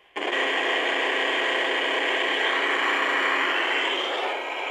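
Old AM radio tuned to 530 kHz bursting into loud, steady static with a buzzing hum just after the start: electrical interference picked up from the high-voltage power supply as it is switched on.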